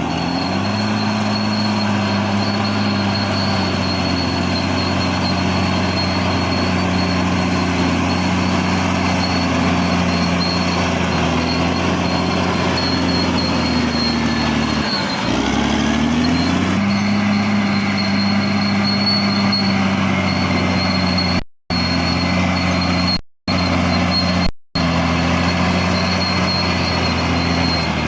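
Caterpillar D6R XL bulldozer's diesel engine running steadily, its pitch dipping briefly about halfway through and rising back. The sound cuts out completely three times for a moment near the end.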